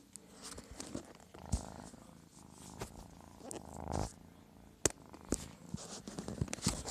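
Kitten purring in stretches, with several sharp clicks in between.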